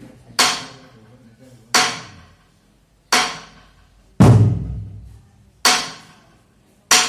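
Slow, even percussion beat: six sharp strikes about 1.3 seconds apart, each ringing off briefly, the one about four seconds in landing with a deep drum thud.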